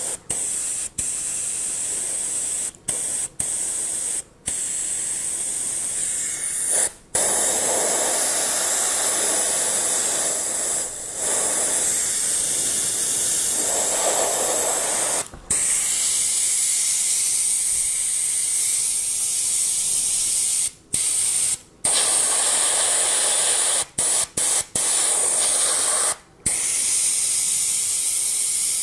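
Badger Krome double-action airbrush with an ultra-fine 0.2 setup, spraying water on compressed air as a test after repair: a steady high hiss. The hiss cuts off briefly about a dozen times as the trigger is released and pressed again. Its working hiss shows the rebuilt air valve is passing air.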